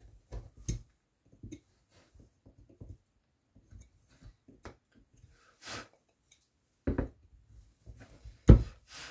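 Small, scattered clicks, scrapes and knocks of a hand carving tool cutting into wood, with louder knocks about seven seconds in and near the end, and a short hiss midway.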